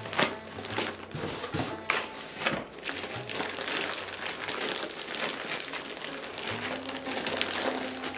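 Crinkling and rustling of a foam sheet wrap and cardboard packing as a boxed radio is handled and lifted out, in many quick irregular crackles. Faint background music with steady tones plays underneath.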